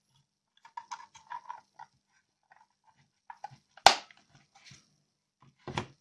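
Plastic clicks and rattles from handling the battery compartment of a small battery-powered barbecue blower fan. A sharp plastic snap comes about four seconds in and a softer knock near the end; the fan motor is not running.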